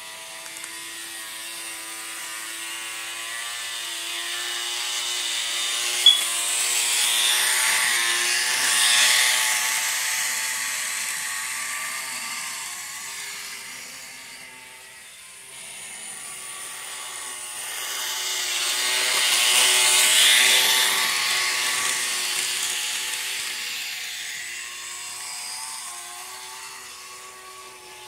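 Model switcher locomotive running around a loop of track: its small electric motor whines steadily while the wheels rumble on the rails, swelling as the train passes close by twice, about eleven seconds apart. A single sharp click about six seconds in.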